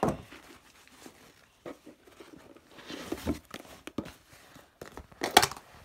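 A plastic slime tub and the slime inside being handled and opened: scattered small clicks, crackles and squishes, with one louder sharp noise about five seconds in.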